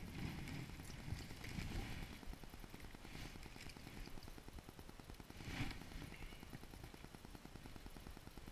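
Heavy clothing rustling and rubbing against the microphone as the angler handles a fishing rod, with a few louder scuffs and bumps. Beneath it runs a low, steady crackling rumble.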